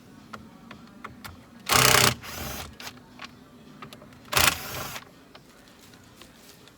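Cordless power screwdriver with a Phillips bit whirring in two short bursts, about two and a half seconds apart, as it backs out the screws of the steering column trim shroud.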